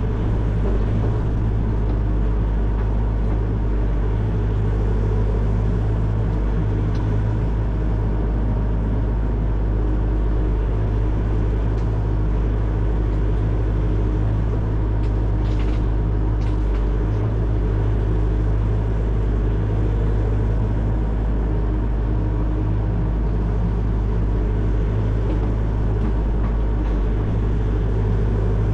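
Excavator's diesel engine running steadily, a constant low drone with no change in pitch, with a few faint clicks a little past the middle.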